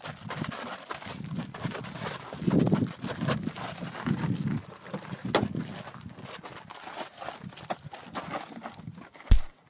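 Two men scuffling: feet scraping on sandy gravel, clothes rustling and straining grunts as they grapple against a car. Near the end comes one heavy thump as the car door is slammed.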